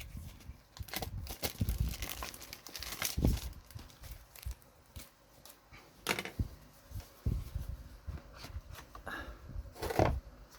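Packaging being torn and crinkled open by hand to get at a pocket watch, with irregular rustles and clicks.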